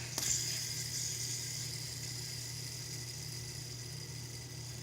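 A fidget spinner, flicked with a sharp click at the start, then whirring faintly and steadily as it spins, slowly fading, over a low steady hum.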